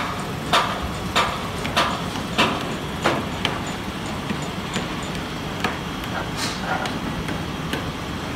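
Hammer blows, struck steadily about every 0.6 s, stopping about three seconds in; a few fainter, scattered knocks follow over steady background noise.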